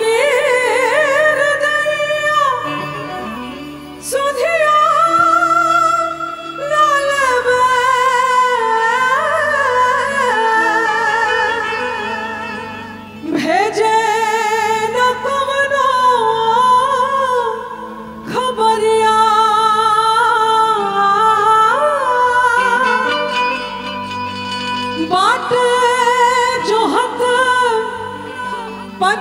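A woman singing a Bhojpuri song live through a microphone, in long held phrases with pitch bends and vibrato, over a steady instrumental accompaniment. The phrases break briefly several times, about 4, 13 and 18 seconds in.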